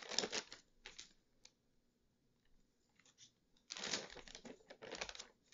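Paper notebook pages rustling as the notebook is flipped and handled: a few short rustles at first, then a longer spell of rustling about four seconds in.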